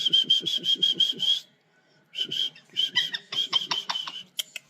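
Pet parrot calling: a fast run of repeated high chirping whistles, about six a second. After a short pause comes a second run of varied whistled notes, then a few sharp clicks near the end.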